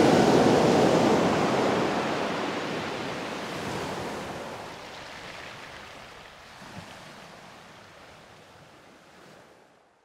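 Ocean surf washing, fading out gradually over about nine seconds.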